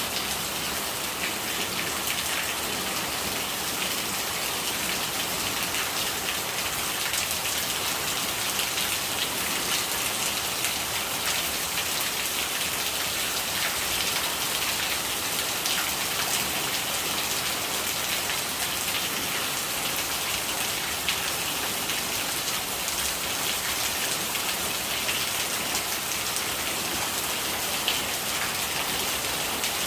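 Steady rain falling, a dense patter of drops over an even hiss, with rainwater gurgling as it runs.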